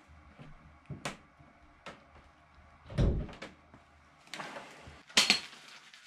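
Knocks and clunks from a wrench on a bottom bracket removal tool as the stuck bike bottom bracket is worked at. A heavy thud about three seconds in, some scraping, and a sharp clatter just after five seconds.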